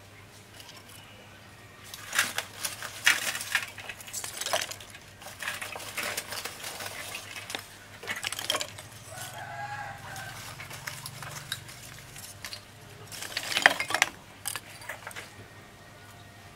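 Lumps of charcoal being set onto a smoking twig fire, clinking and knocking against each other in irregular clusters. The knocks are thickest a couple of seconds in and again near the end.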